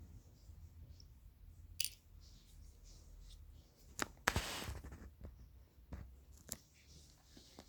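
Hand tools and plastic parts being handled while a subwoofer is taken apart: a few sharp clicks and knocks, and a short scraping rasp a little after four seconds in, the loudest sound.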